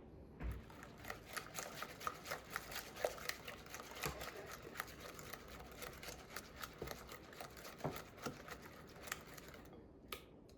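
A utensil stirring a wet oatmeal mixture in a bowl, with rapid, irregular clicking and tapping against the bowl's side.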